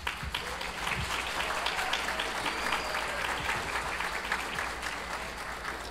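Audience applause: many hands clapping densely, slowly thinning out toward the end.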